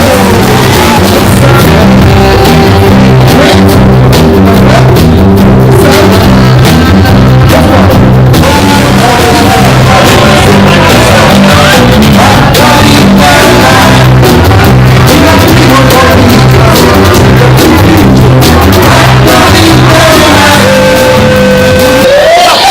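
A live band playing, with a loud repeating bass line driving the music, recorded on a mobile phone that overloads and distorts it. Near the end a held note slides upward in pitch.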